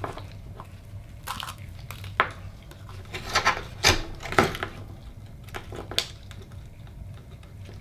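Oyster knife prying open an Akoya pearl oyster against a wooden cutting board: scattered clicks and scrapes of blade on shell and shell on wood, most of them about three to four and a half seconds in.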